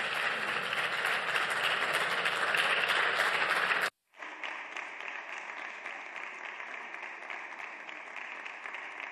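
Parliamentary applause from the deputies in the chamber, loud for about four seconds; after a sudden brief dropout to silence, quieter applause continues.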